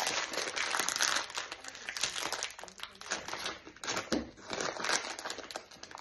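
A plastic snack packet crinkling as it is pulled open and handled, a dense crackle in the first couple of seconds, then intermittent crinkles that thin out near the end.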